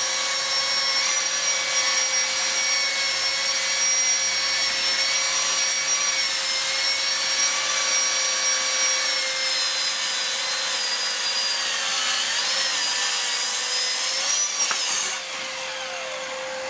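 HiKOKI 36 V brushless plunge-cut track saw, powered through its AC adapter, running along its guide rail and cutting through timber with a dust extractor hooked up; about fifteen seconds in the saw's whine drops away as it winds down, while a steady hum from the extractor carries on.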